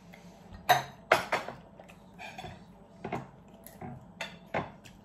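Chopsticks and utensils clicking and knocking against plates and bowls: a string of short, sharp clinks, the loudest about a second in.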